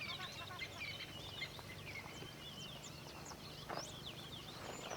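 Several birds chirping, with many short, high calls overlapping.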